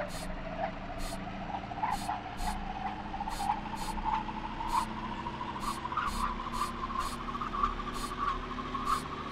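Experimental electronic sound piece: a wavering tone that slowly rises in pitch and then levels off, over a low hum, with short high ticks every half second or so.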